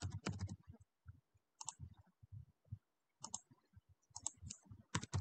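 Faint, irregular clicks of computer keyboard keystrokes and mouse clicks as a form is filled in.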